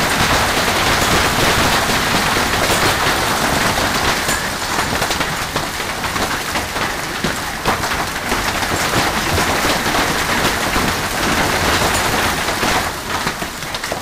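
Large hail, about golf-ball size, pelting down in a dense, steady clatter of countless impacts, easing a little near the end.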